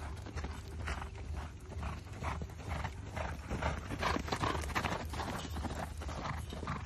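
A horse galloping on soft, dusty sand: rhythmic hoofbeats, a few a second.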